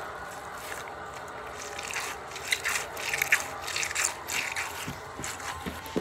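Hands squeezing and rubbing a mesh stress ball filled with water beads. Soft rubbing at first, then from about two seconds in a run of sharp, scratchy squishing strokes. A few light knocks come near the end.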